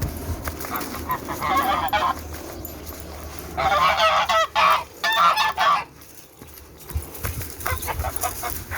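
Domestic geese honking: a short burst of honks about a second and a half in, then two longer rounds of loud honking around four and five seconds in, followed by a few light taps near the end.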